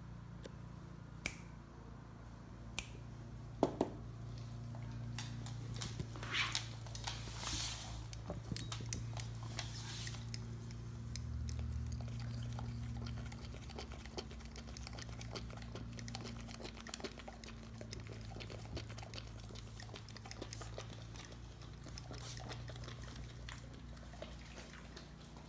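German Shepherd lapping a babyccino of frothed milk from a ceramic bowl: quick, wet tongue laps that start about five seconds in and go on, with short pauses. A few sharp clicks come before the lapping, and a steady low hum sits underneath.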